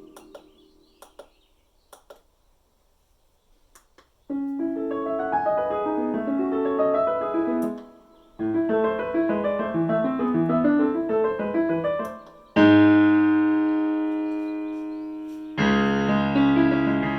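Korg SP-250 digital stage piano being played. After a few seconds of faint clicks there are flowing runs of notes with a short break between them. Then two full chords are struck, the first left to ring and fade.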